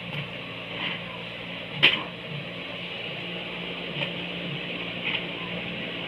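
A 3-in-1 combination metal bending machine running with a steady motor hum. One sharp metallic clack comes about two seconds in, and lighter clicks follow near four and five seconds.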